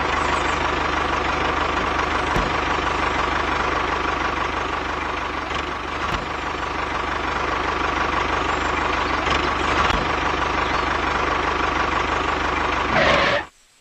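Tractor engine running steadily with a low, even chugging, cutting off suddenly near the end.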